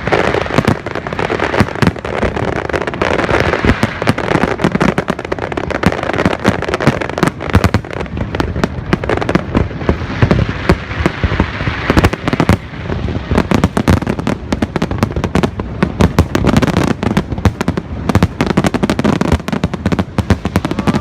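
Fireworks display going off in quick succession: a dense, loud string of sharp bangs and crackling bursts, many a second.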